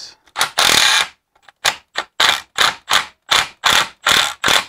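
Ratchet wrench with an 8 mm socket undoing a bolt on an alternator: a quick run of short ratcheting clicks, about three strokes a second, after one longer stroke near the start.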